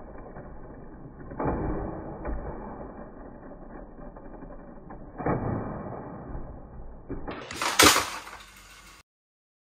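Battery-powered Thomas & Friends toy engines, their small motors and plastic gears whirring and grinding as the engines push against each other, swelling louder twice. Near the end comes a louder, sharper clatter, and the sound cuts off suddenly.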